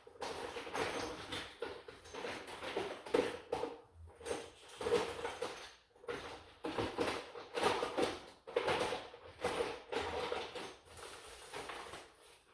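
Small hard objects being handled and rummaged through, with irregular rattling and rustling in uneven bursts.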